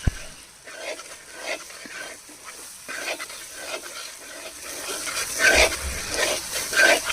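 A spatula stirring thick onion-tomato masala in a frying pan, with repeated wet scraping strokes about twice a second that grow louder in the second half, and a single sharp knock right at the start.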